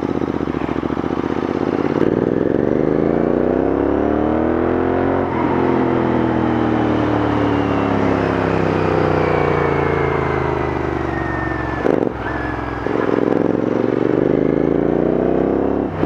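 Royal Enfield Interceptor 650's parallel-twin engine running through an aftermarket Red Rooster slip-on exhaust. It revs up for about five seconds, drops sharply at a gear change, falls away as the throttle eases, breaks off briefly near twelve seconds, then revs up again.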